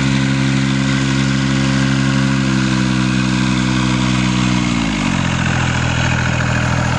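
The engine of a 7.5-inch gauge orange switcher locomotive running steadily as it hauls a passenger train past, its pitch dropping sharply about five seconds in and then holding lower.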